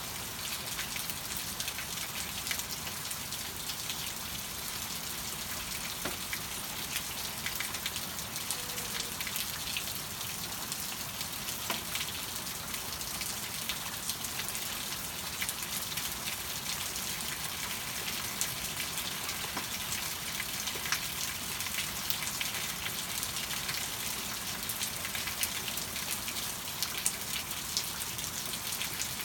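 Steady rain falling, with many individual drops ticking sharply on surfaces over an even hiss.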